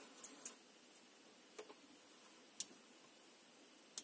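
A few small, sharp plastic clicks and taps from wireless sport earphones and their cord being handled, spaced irregularly, the loudest about two and a half seconds in.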